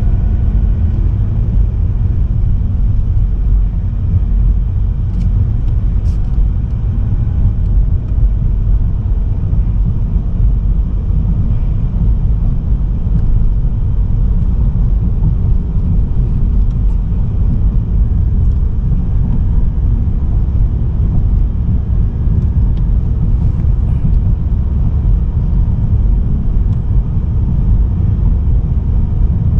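Steady low rumble of a car under way, the engine and road noise heard without change throughout.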